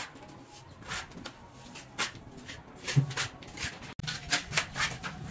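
A series of short scrapes and knocks from a plasterer's trowel working sand-and-cement mortar on a brick wall, the sharpest knock about three seconds in.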